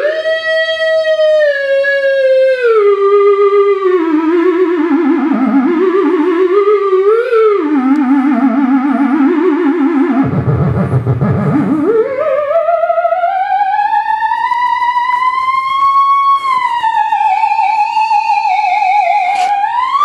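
Theremin played as one continuous tone with a wavering vibrato, its pitch gliding: it slides down from a middle pitch to a low one by about halfway, then swoops back up to a high pitch and stays high, with small wobbles, to the end.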